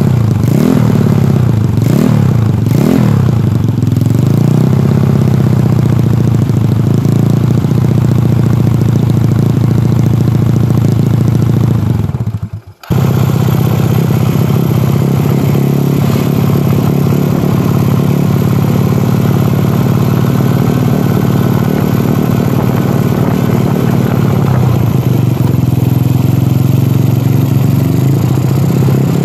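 Yamaha Mio bore-up scooter's single-cylinder four-stroke engine running through a DSM aftermarket racing silencer: about three quick throttle blips on the stand in the first few seconds, then the exhaust note while riding after a brief dropout about 13 seconds in.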